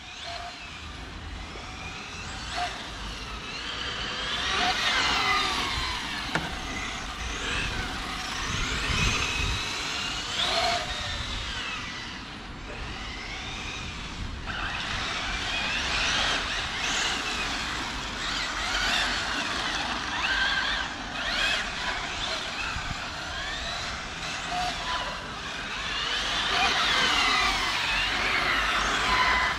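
Electric RC cars' brushless motors whining, the pitch sweeping up and down again and again as the cars accelerate and slow, with several sweeps overlapping.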